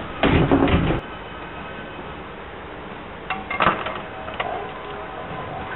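Sliding passenger doors of a Seibu commuter train closing with a loud rattle that stops abruptly about a second in. After that the standing train gives a steady hum, with a cluster of clicks and knocks a little past the middle and another knock at the end.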